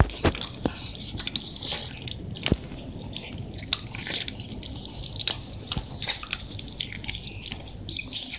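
A Shiba Inu gnawing a dog chew stick: irregular biting clicks and crunches, sometimes several close together.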